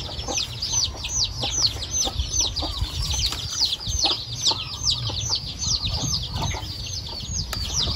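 Chickens calling: a steady run of high, short, falling peeps about three or four a second, with lower clucks now and then.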